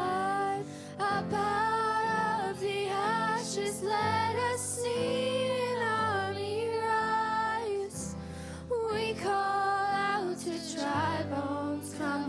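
A woman singing a slow worship song with instrumental accompaniment, her sustained melody gliding between notes.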